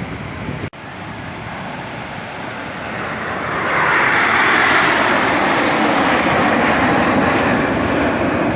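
An aircraft flying past at an air display, its engine noise swelling about three seconds in and then staying loud.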